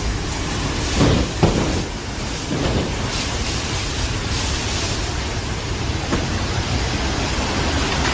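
Derecho windstorm with driving rain, heard from inside a building through glass doors: a steady, loud rush, with a couple of stronger surges about a second in.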